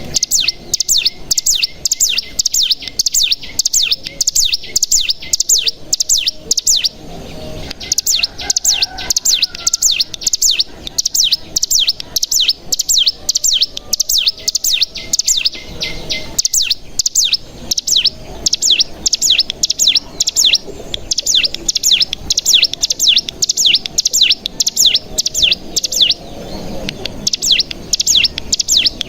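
Ciblek gunung (cigun) singing its long rapid trill ('ngebren'): a fast run of high, downward-sweeping notes, about five a second, broken briefly twice.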